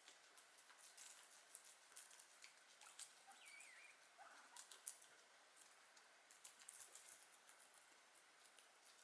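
Guinea pigs chewing, a faint, irregular run of small crisp clicks. A brief faint chirp sounds about three and a half seconds in.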